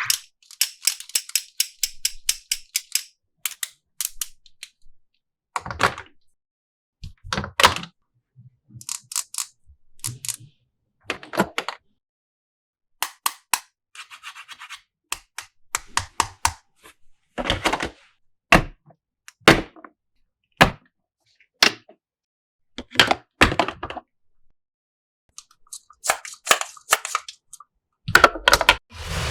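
Small hard plastic toy pieces being handled and set down: a string of sharp clicks, taps and knocks at irregular intervals, with a few short bursts of rustling.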